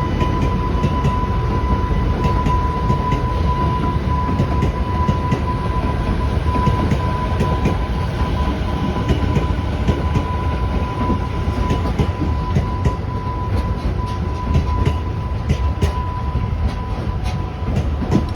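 JR Freight container train of Koki wagons rolling past on departure: a steady deep rumble with wheels clacking over rail joints, the clacks coming more often in the second half. A steady high-pitched tone runs under it.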